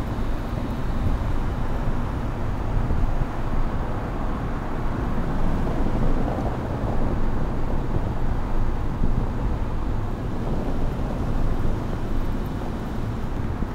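Steady low rumble of road and engine noise inside a car's cabin as it drives slowly along.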